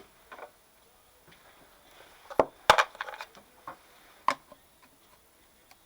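A handful of sharp knocks and clicks as parts of an old electric motor are handled and opened up, the loudest two close together about two and a half seconds in and another a little past four seconds.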